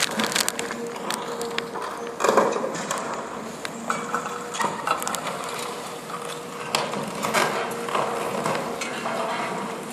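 Demolition excavator's hydraulic cutter crushing a reinforced-concrete pillar: irregular cracking, knocks and clattering of broken concrete, with a louder crunch about two seconds in and a steady machine hum underneath.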